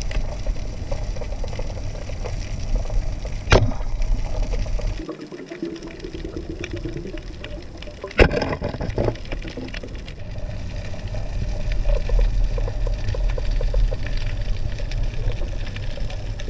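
Underwater water noise heard through a camera's waterproof housing: a steady rushing and rumbling, with two sharp knocks, one about three and a half seconds in and a louder one about eight seconds in.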